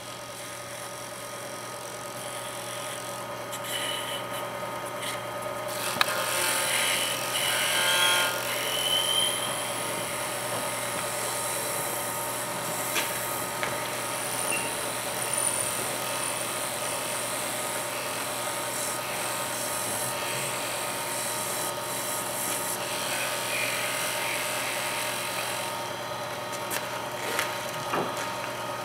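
Wood lathe running with a steady motor whine, while work on the spinning wood adds a scraping hiss with a few short squeals about six to ten seconds in and again near the end.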